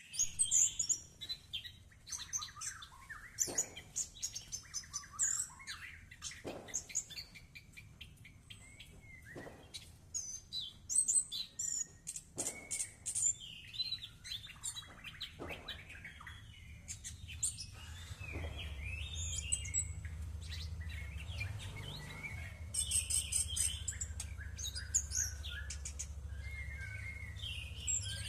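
Songbird chirping and twittering in quick high calls, some in fast rattling runs, over short splashy swishes about every three seconds as a caged thrush bathes. A low steady hum comes in about two-thirds of the way through.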